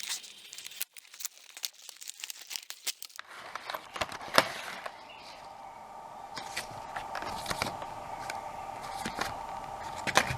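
Packaging of a McGard wheel lock set being opened by hand: crinkling and tearing with many small irregular clicks and crackles. A steady hum comes in underneath about three seconds in.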